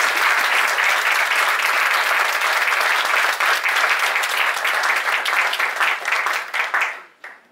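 Audience applauding, a dense steady clapping that thins to a few scattered claps near the end and stops.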